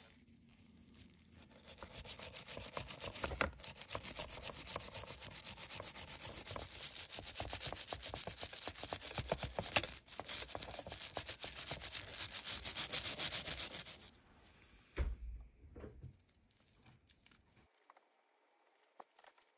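A brush scrubbing the steel screw thread of a Record No.6 G-clamp coated in wet brown cleaning paste, in quick repeated back-and-forth strokes that stop a little over two-thirds of the way through. After that comes a single low thump and a few light clicks.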